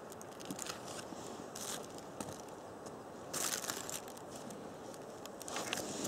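Irregular rustling and crinkling in short bursts, loudest about three and a half seconds in and again near the end.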